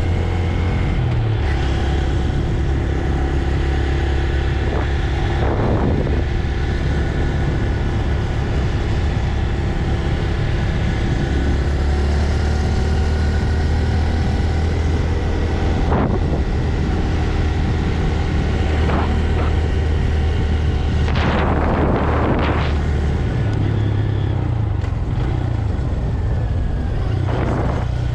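A stock 2025 Honda Grom's single-cylinder four-stroke engine running steadily under way through its stock exhaust. The engine note steps to a different speed a few times, and there are a few short rushes of noise.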